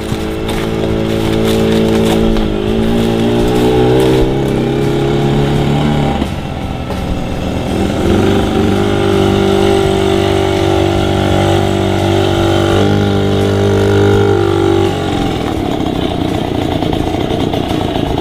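Small step-through underbone motorcycle engine running as the bike rides up and slows, its pitch shifting a few times, then running steadily through the middle before the tone changes near the end.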